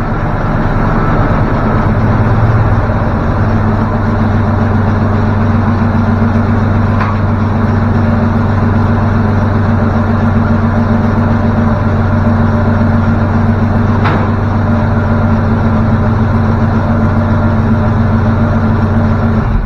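Chevrolet Vortec 454 big-block V8 idling steadily, running on a homemade standalone wiring harness, then cutting off suddenly at the end.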